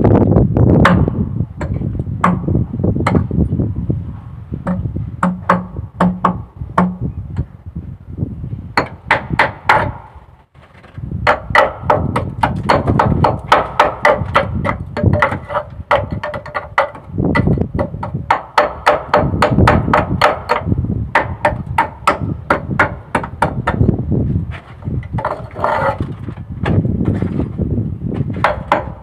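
Hammer blows on steel, a few strikes a second with a short ringing after many of them, broken by a brief pause about ten seconds in.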